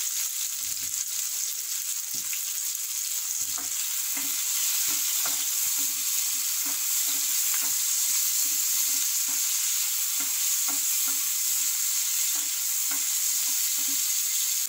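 Onions and tomatoes sizzling in hot oil in a frying pan, cooking down until soft. From a few seconds in, a spatula stirs them in quick strokes, about two or three a second, scraping over the sizzle.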